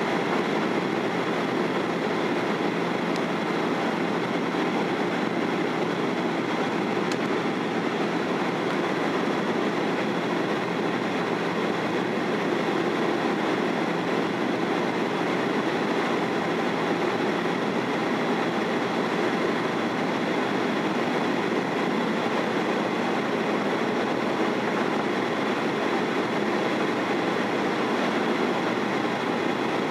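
Steady cabin noise inside a Boeing 737-800 airliner in its descent: the even hum of its CFM56 turbofan engines mixed with the rush of air over the fuselage, with a faint steady whine above it.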